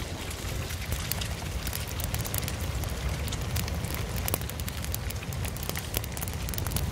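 Wood campfire crackling, with frequent sharp pops over a steady low rumble.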